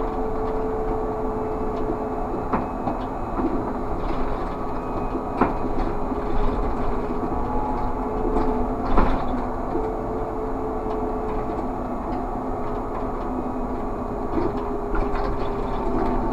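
Škoda 30Tr SOR trolleybus on the move, heard inside the cab: a steady electric drive whine over road rumble. Scattered knocks and rattles come from the body, the sharpest about nine seconds in.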